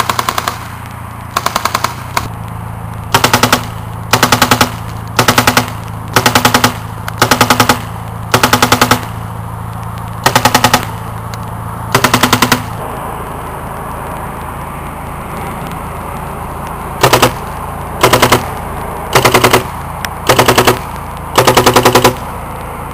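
Tippmann A5 paintball marker, fitted in a replica Browning .50 machine-gun kit, firing short rapid bursts of several shots each, about one burst a second. The firing pauses for about four seconds midway, then resumes with five more bursts. A steady low hum runs underneath.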